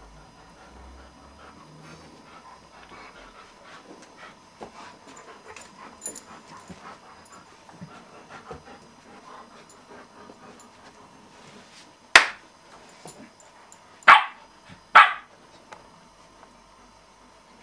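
Dog barking three times, loud and sharp, in the last third, the last two close together. Before them there is only faint scuffling of the dogs playing on the rug.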